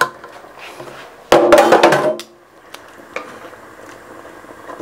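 Metal sheet pan clattering and ringing as it is set down, about a second in, followed by a couple of light knocks of a wooden spoon in an enamelled cast-iron pot.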